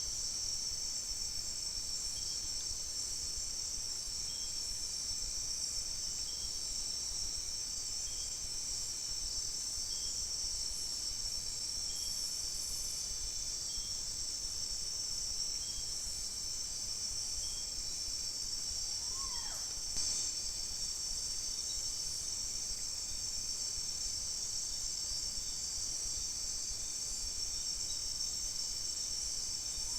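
Steady, high-pitched chorus of forest crickets or similar insects, with a faint tone repeating about every second and a half. About two-thirds of the way in, one short falling call from some animal, followed by a small click.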